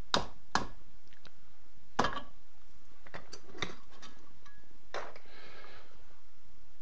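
A small hammer tapping a metal rod to seat a new needle assembly into a Titan SGX-20 spray gun: three sharp metallic taps in the first two seconds, then a few lighter clicks.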